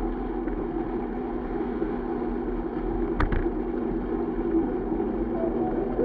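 Steady rush of wind and tyre noise from a mountain bike ridden fast on asphalt, heard from a camera on the bike. There is one sharp knock about three seconds in.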